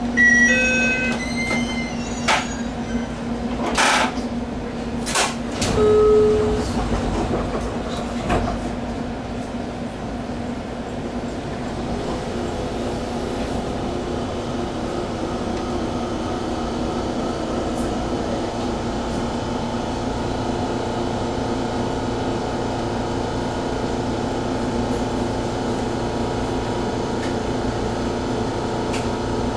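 JR Kyushu 817 series electric train standing at a station, heard from the cab. In the first few seconds there are several short electronic beeps at different pitches, a brief lower tone and a few sharp knocks. After that comes the steady, pitched hum of the stopped train's onboard equipment.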